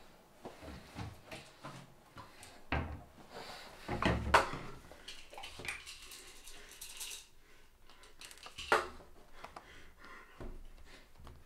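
Handling sounds: a run of small knocks and clicks as a plastic pill bottle and tablets are handled on a tabletop. The loudest knocks come about four seconds in and again near nine seconds.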